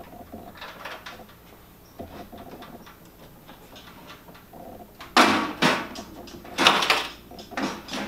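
Sheet-metal case of a diesel air heater being handled and slid off: quiet fiddling and rustling at first, then about five seconds in a few loud scraping clatters of the metal cover.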